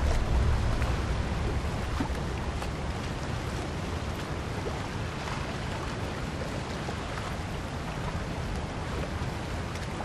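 Steady rushing noise of sea and wind around a ship at sea, with a low rumble fading away over the first second or two.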